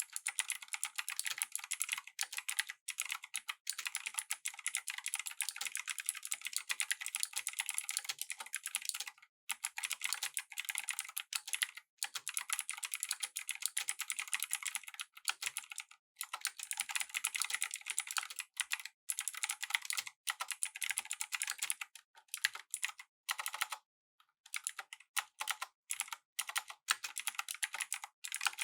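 Typing on a Razer BlackWidow V3 Pro mechanical keyboard with Razer Green clicky switches: rapid, continuous key clicks in long runs, broken by a few brief pauses.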